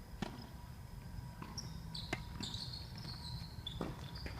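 Tennis ball thudding off rackets and the court: a handful of sharp, irregularly spaced knocks. High-pitched chirping joins about a second and a half in.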